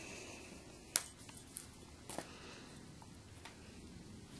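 A few faint, short clicks and taps, the sharpest about a second in, as toys and cardboard packaging are handled on the carpet. Between them there is only quiet room tone.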